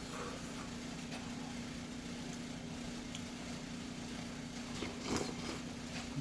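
Quiet eating sounds of rice noodle soup: a few soft clicks and mouth noises while chewing, with a louder one about five seconds in, over a steady low hum.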